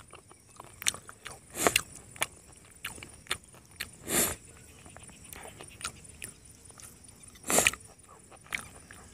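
Close-miked eating sounds: chewing and lip smacks with small clicks as grilled chicken is torn and eaten, and three short breathy puffs.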